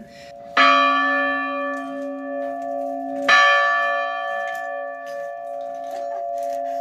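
Church bell rung by hand, struck twice about three seconds apart. Each strike rings on in a long, slowly wavering hum.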